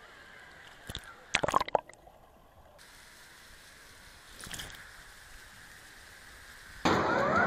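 Water splashing and sloshing right at a waterproof action camera, with a short cluster of loud splashes about a second and a half in and quieter watery noise otherwise. Near the end a sudden loud din with rising electronic tones cuts in.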